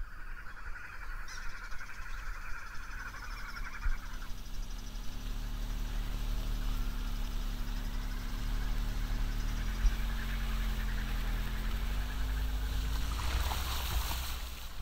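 Car engine running at low speed as the vehicle drives along a wet dirt road, its note dipping and rising again partway through. Tyre noise on the wet surface swells near the end.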